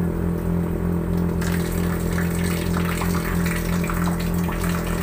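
Sewer suction machine running with a steady, even drone from its engine and vacuum pump. About a second and a half in, water starts gushing and splashing as it pours into the gully chamber around the suction hose.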